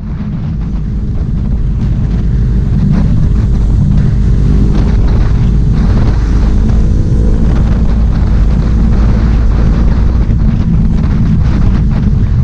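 A motorcycle engine running steadily at cruising speed, heard under heavy wind noise on the camera microphone while riding. The sound fades in over the first two seconds, then holds steady.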